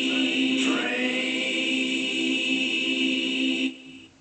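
Music with singing voices holding a long chord, one note sliding early on, cutting off abruptly near the end.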